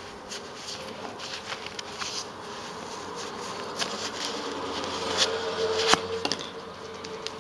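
Rustling and scraping of a cardboard square being slid slowly out of a thick winding of wool yarn, with small ticks of fingers on the card and one sharper tick about six seconds in. A faint steady buzz comes in about halfway through.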